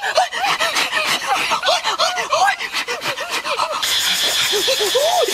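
Puppy whimpering and yipping in a rapid run of short high cries. A steady high hiss joins about four seconds in.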